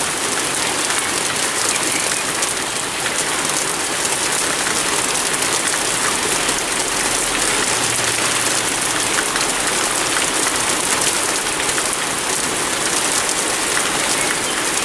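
Heavy rain pouring steadily, an even hiss without a break. A faint low rumble comes in about six seconds in and fades out after about three seconds.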